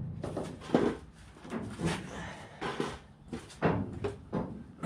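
Irregular light knocks and taps on a car's sheet-metal body panel during hand bodywork to flatten it, about six of them spread unevenly.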